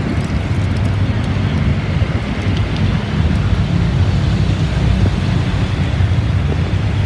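Wind buffeting the microphone: a steady, loud, fluttering low rumble with a hiss above it.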